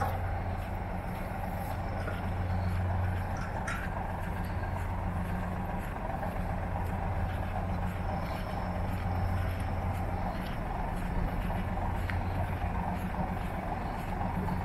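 Steady low drone of idling diesel engines, with a brief click just under four seconds in.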